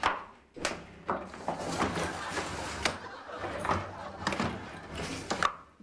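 High-heeled footsteps coming down hard stone stairs, irregular clacks and knocks about once a second, as a large hard-shell suitcase is carried down.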